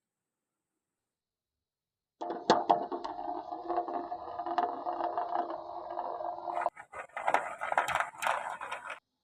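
Glass marbles rolling down a wooden marble run track: a steady rolling rattle with sharp clacks starts about two seconds in, turns into a looser, brighter clatter of clacks for the last couple of seconds, then stops.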